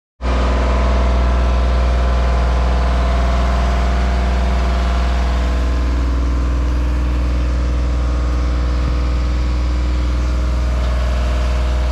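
Steady, loud mechanical drone with a strong low rumble, holding one fixed pitch throughout.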